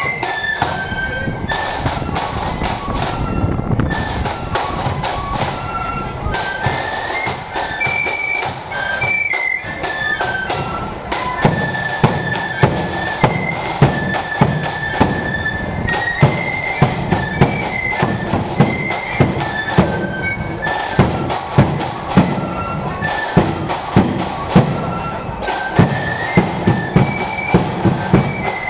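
Marching flute band playing a tune in unison, the high flute melody carried over snare and bass drums. From about a third of the way in, the bass drum beats out a steady march pulse, about one and a half beats a second.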